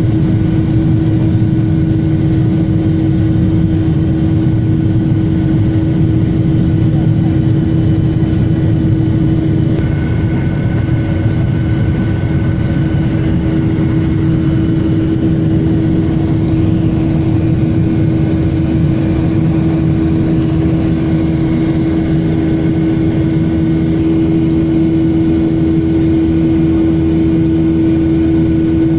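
Steady jet engine and airflow noise inside the cabin of a Boeing 737 climbing after takeoff, a constant rush with a steady droning hum underneath.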